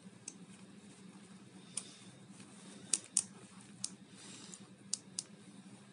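Small sharp clicks and ticks of AG3 button-cell batteries being fitted into the metal battery holder of an LED light pen by gloved fingers, about seven clicks in all, the loudest pair close together about three seconds in.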